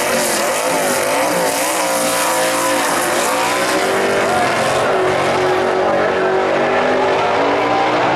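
Two muscle car engines at full throttle as the pair accelerates hard down a drag strip. The engine note wavers and climbs for the first few seconds, then holds steady.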